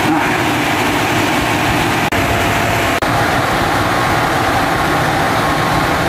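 Britânia Mega Turbo 130 W desk fan running at speed: a steady, loud whir of rushing air with a faint motor hum.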